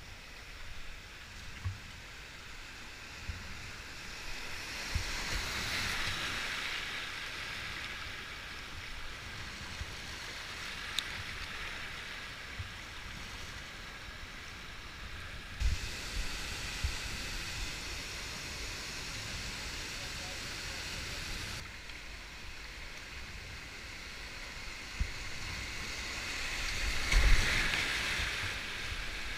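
River water rushing and splashing around a whitewater kayak as it is paddled, with dull low knocks throughout. The rush swells sharply near the end as the kayak enters a whitewater rapid.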